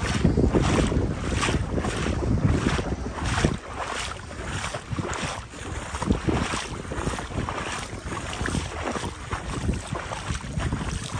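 Legs wading through knee- to waist-deep floodwater, a rhythmic swish and slosh with each stride. Wind buffets the microphone throughout.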